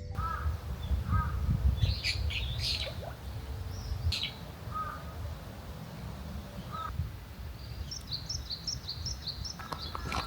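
Wild birds calling: scattered short chirps, then from about eight seconds in a quick run of evenly spaced high notes, over a steady low rumble.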